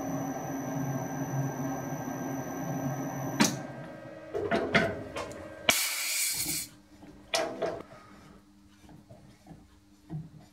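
Metal lathe running with a steady motor hum and a high-pitched whine, switched off about a third of the way in. A few seconds later comes a short hiss of compressed air from a blow gun clearing brass chips from the threaded nut, then a few light metallic knocks as the Acme screw is offered into the nut.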